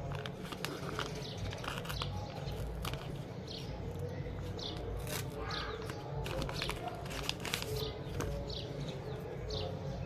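Paper rustling and crackling as a handmade paper blind bag is handled and unfolded, with a small bird chirping repeatedly in the background over a steady low hum.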